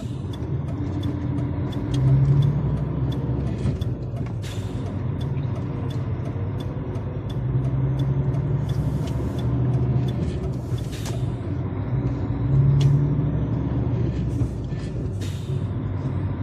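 DAF truck's diesel engine running on the move, heard from the cab, its note swelling louder three times as the driver works the throttle, with a few short hisses in between. The driver says this engine misfires under load.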